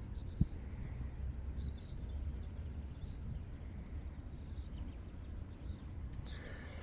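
Outdoor riverside ambience: a steady low rumble with a few faint, short bird chirps about a second and a half in, and a single soft knock near the start.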